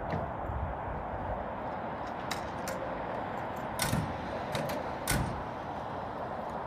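Several sharp clicks and clunks of doors and kit, about two to five seconds in, over a steady hum, as a fire crew turns out at the station.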